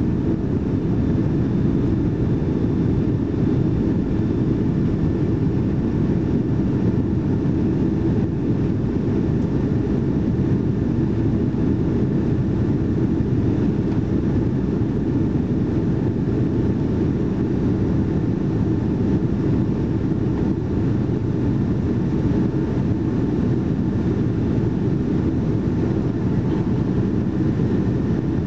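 Boeing 757-200 jet airliner in its initial climb, heard from inside the cabin: a steady low rumble of the Pratt & Whitney turbofans at climb thrust mixed with airflow rushing past the fuselage, with a faint steady whine above it.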